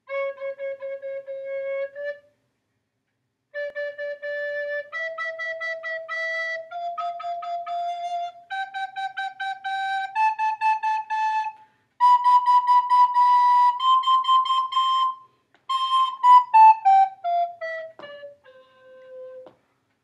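White plastic soprano recorder playing a scale: short tongued notes repeated on each step, climbing one step at a time to the top note, then running quickly back down the scale to finish on a low note. There is a short pause about two seconds in, before the climb.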